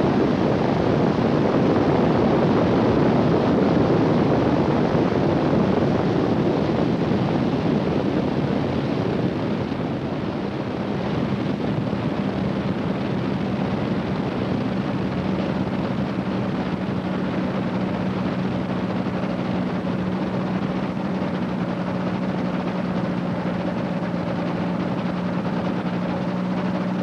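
Rotax 582 two-stroke engine of a microlight trike running at low power while the trike rolls along the runway, with wind rushing over the microphone. After about ten seconds the rush eases and the engine settles into a steady idle hum.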